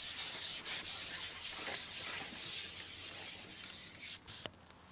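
Carbon fishing pole being shipped back, its sections sliding through the angler's hands with a steady rough rubbing hiss that dies away a little after four seconds in, followed by one short click.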